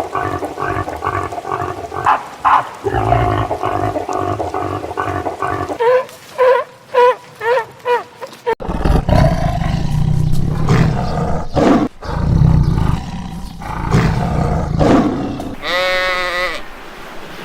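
Several different animal calls in succession: a pulsing call at first, then a quick run of about six short pitched calls, then low, rough calls, and a call with a wavering pitch near the end.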